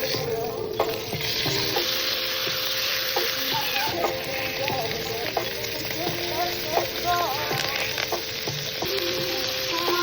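Food sizzling and frying in a hot pan, a steady crackle throughout.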